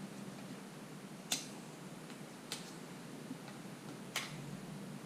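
Plastic curing film being peeled slowly off windshield repair resin on the glass, giving a few sharp clicks about a second and a half apart over a low steady hum.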